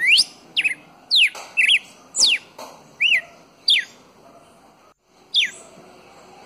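Red-cowled cardinal singing: a quick series of loud, clear whistled notes, some sweeping steeply down in pitch and some short and arched, about eight in the first four seconds, then one more after a short pause.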